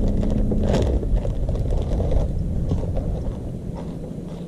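A boat motor's steady hum cuts off under a second in with a click, leaving a low rumble with scattered light clicks and knocks.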